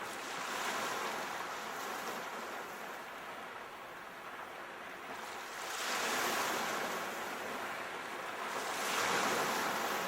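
Ocean waves washing in, a steady rushing that swells and ebbs, with two stronger surges in the second half.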